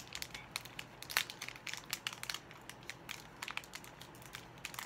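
Foil wrapper of a Pokémon card booster pack crinkling and crackling in the hands as it is worked at to tear it open: irregular sharp crinkles, several a second.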